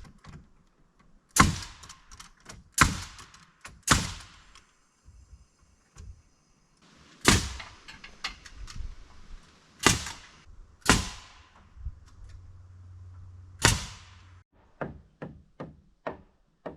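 Boards being nailed onto a wooden wall frame: about seven loud, sharp blows on nails spaced irregularly one to three seconds apart, then a run of lighter, quicker taps near the end.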